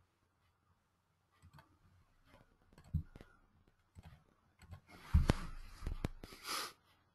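Scattered computer mouse clicks and small knocks, with a louder thump about five seconds in and two short rustling bursts shortly after.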